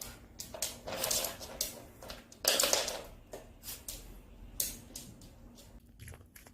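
Dog gnawing on a hard dog chew: irregular clicks and crunches of teeth on the chew, with the loudest crunch about two and a half seconds in.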